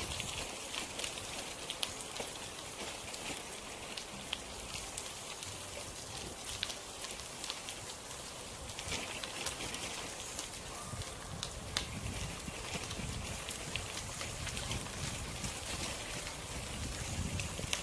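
Bicycle tyres rolling over a crushed-gravel trail: a steady crackle of small stones with scattered sharp ticks.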